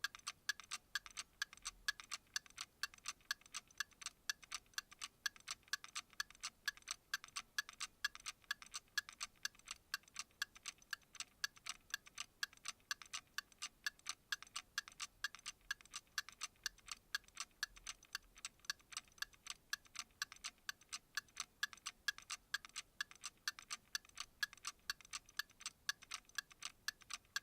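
Clock ticking: a long run of light, sharp ticks at an even, quick pace of several a second.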